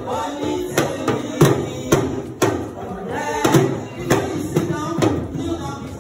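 Music with a drum beat of about two hits a second and some singing.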